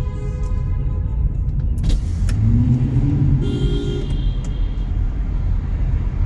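Car driving through a road tunnel, heard from inside the cabin: a steady low road and engine rumble, with a car horn sounding briefly a little past halfway.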